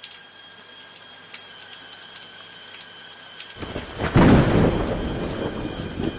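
Steady rain falling, then a loud thunderclap about three and a half seconds in that peaks just after and rolls off into a long rumble.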